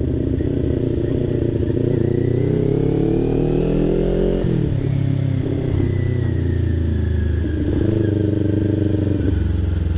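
Sport motorcycle engine heard from the rider's seat while under way. The revs climb steadily for about four seconds, drop sharply as the rider shifts up, then climb again more slowly.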